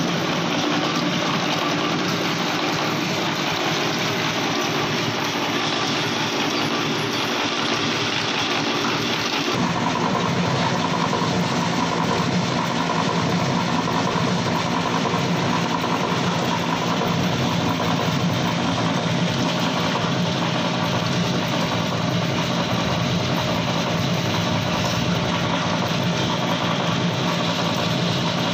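Belt-driven coconut oil expeller machinery running: the mill's pulleys, flat belts and press make a loud, even mechanical din. The sound shifts abruptly about ten seconds in, to a steadier hum.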